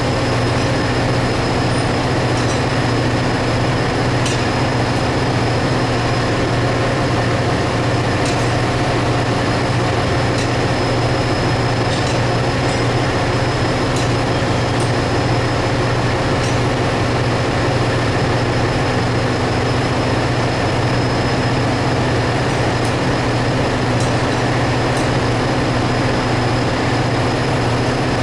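Ship's engine-room machinery running steadily: a loud, constant low hum with a few steady high whines on top and the odd faint tick.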